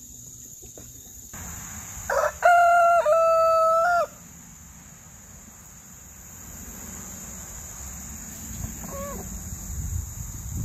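A rooster crowing once, about two seconds in: a short opening note, then a long held note lasting about a second and a half. A faint single cluck follows near the end.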